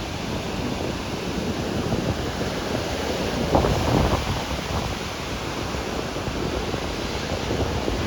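Ocean surf washing onto a beach, a steady rush of breaking waves with wind buffeting the microphone; a wave breaks louder about three and a half seconds in.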